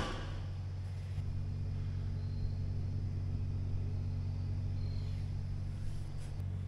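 A wrench clanks once, sharply, against the garden tractor's steel frame. A steady low hum follows.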